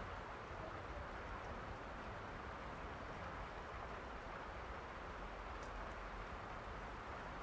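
Steady rain falling, an even hiss with a low rumble underneath, with a faint drip tick about five and a half seconds in.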